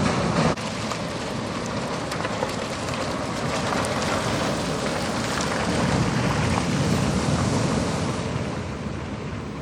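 Ocean surf breaking and seawater rushing, a steady roar of water that swells about halfway through and eases off near the end.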